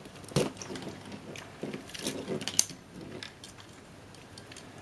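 Scattered light clicks and taps of small plastic wire connectors being pulled from a digital camera's circuit boards while the loose wires are handled, with one sharper click about half a second in.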